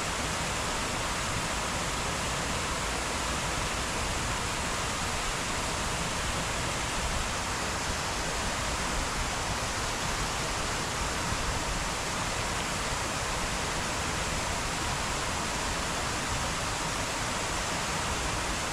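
Waterfall's falling water rushing steadily, a dense, even roar with no breaks.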